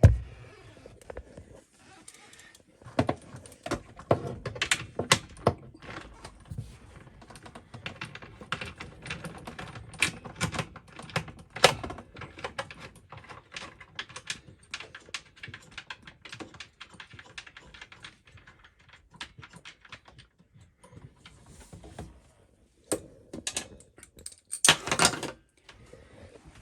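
Ratchet socket wrench on an extension bar clicking in irregular runs as the nut holding the kitchen mixer tap is undone from underneath. There is a louder rattle near the end.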